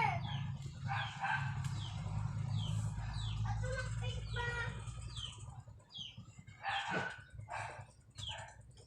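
Homemade slime being squeezed and kneaded by hand, giving a run of short squeaks and sticky pops, each sliding down in pitch, over a low rumble from the handling that stops about halfway through.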